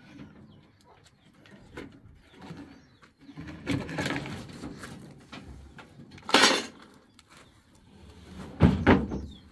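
A large wooden cabinet being slid and walked off a pickup truck's bed by hand, scraping and knocking, with two louder scrapes, one a little past the middle and one near the end.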